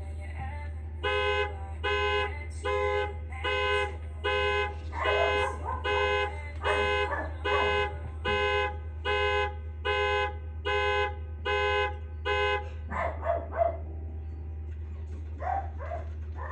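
Lexus car alarm going off, the car's horn sounding in short, even blasts a little over once a second, about fifteen in all, then stopping about 13 seconds in, followed by a few short knocks and rustles.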